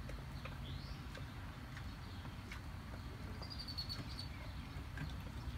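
Quiet ambience in a hay-bedded calf pen with a low steady rumble, a few faint clicks and faint high chirps, including a short run of quick chirps about three and a half seconds in.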